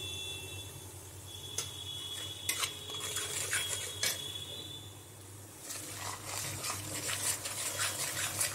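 A metal spatula stirring and scraping spice paste frying in oil in a metal kadhai. There are a few sharp taps against the pan in the first half, then continuous scraping over the last few seconds, with a steady low hum underneath.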